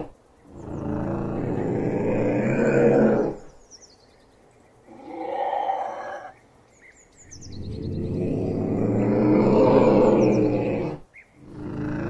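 Ocelot calling with long, low, drawn-out calls. Two long calls, each about three to four seconds, have a shorter, quieter call between them, and another call starts just before the end.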